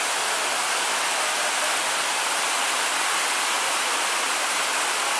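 A waterfall rushing steadily close by: a dense, even hiss of falling water that holds level throughout.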